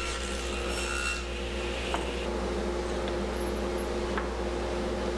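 SawStop table saw running free just after a cut: the high ring of the blade in the wood fades out about a second in, leaving a steady motor and blade hum, with a few light clicks as the tenoning jig and workpiece are handled.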